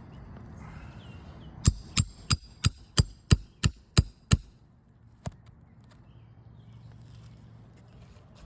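Roofing hammer striking, nine quick sharp blows with a metallic ring, about three a second, followed by one more blow about a second later.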